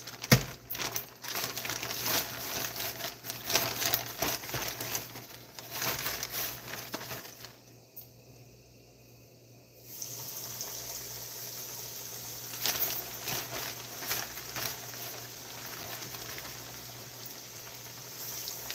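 A zip-top plastic bag crinkling and rustling as catfish is shaken and lifted out of its coating. Then, after a short quiet gap, the coated catfish sizzles steadily as it goes into hot frying oil.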